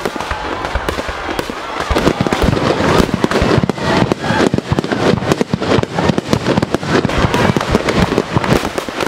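Aerial fireworks going off in quick succession: a dense, continuous run of bangs and crackles that gets louder about two seconds in.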